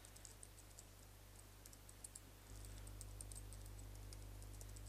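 Faint computer keyboard typing: irregular runs of soft key clicks as a username and password are entered, over a low steady hum that gets slightly louder about halfway through.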